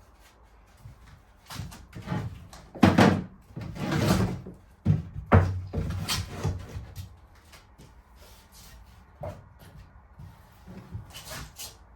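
A run of wooden knocks and thumps, loudest between about three and six seconds in, then a few lighter taps near the end: a timber batten being handled and knocked into place on a narrowboat's wall framing.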